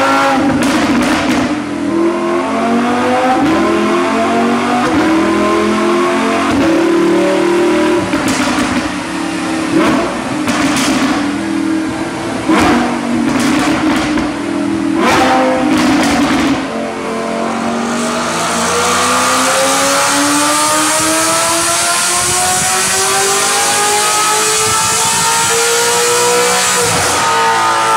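Lamborghini Huracán V10 on a chassis dyno, revving and held at high revs, with several sharp cracks. Then a Maserati Quattroporte V8 makes a dyno pull, its pitch rising steadily for about nine seconds before dropping off near the end as the throttle closes.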